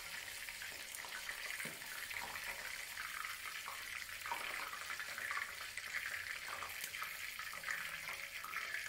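Hot oil bubbling and sizzling steadily around shell-on shrimp deep-frying in a pan, with a few faint crackles.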